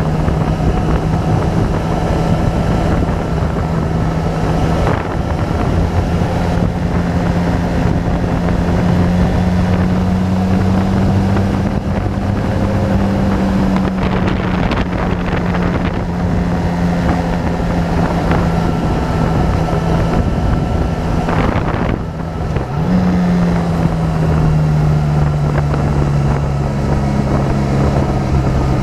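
Motorcycle engine running under way at cruising speed, its note rising and falling gently with the throttle, with wind rushing over the microphone. A little over twenty seconds in the engine note cuts briefly and comes back at a higher pitch, then slowly sinks again.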